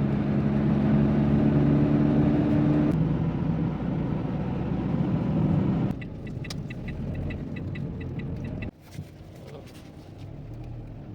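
Renault Kangoo driving, heard from inside the car: engine hum over steady road noise. About six seconds in it drops to quieter road noise with a quick run of light ticks, and it drops again a little before the end.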